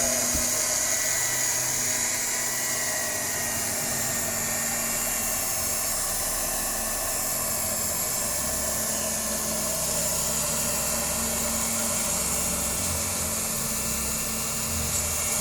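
Electric motor of an Octa mini cloth-cutting machine running steadily with a high whine while cutting a stack of t-shirt knit fabric.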